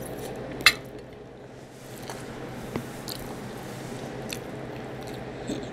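Close-up wet mouth sounds of eating barbecue ribs: biting meat off the bone and chewing, with a sharp smack about two-thirds of a second in and a few softer smacks later, over a steady low hum.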